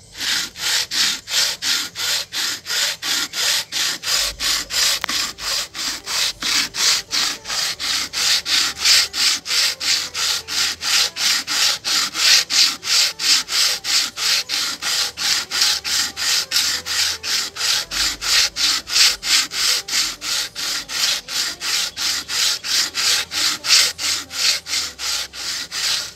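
VW CHT 1.6 water pump housing pushed back and forth by hand over wet 100-grit sandpaper on a flat surface, a steady scraping of about three strokes a second: the housing's gasket face is being lapped flat.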